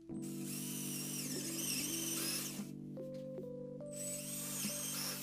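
Cordless drill boring out a screw hole in a steel bar: the motor whines as the bit cuts, runs for about two and a half seconds, stops, and starts again about a second later. Background music with steady tones underneath.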